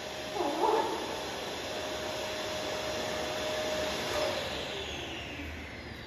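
Canister vacuum cleaner running with a steady whoosh, with a brief, louder wavering squeal about half a second in. Its pitch sinks and the sound eases off near the end.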